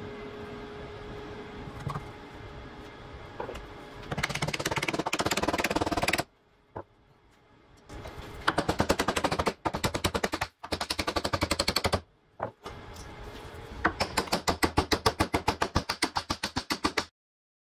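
Ball-peen hammer striking the end of a wooden kukri handle block in fast, even blows, about six a second, driving the handle onto the tang held in a vise. The blows come in three runs with breaks between them.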